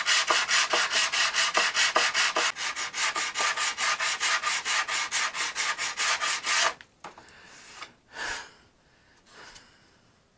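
Hand sanding of a filler wing fillet on a balsa model airplane with a sanding block: quick, even back-and-forth strokes, about five a second, feather-edging the filler into the wood. The strokes stop abruptly about two-thirds of the way in, followed by a few faint brief rubs.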